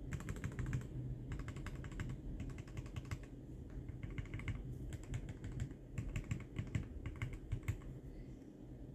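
Typing on an ortholinear mechanical keyboard with Momoka Frog switches and XDA keycaps: quick runs of key clacks in bursts with short pauses, tailing off near the end.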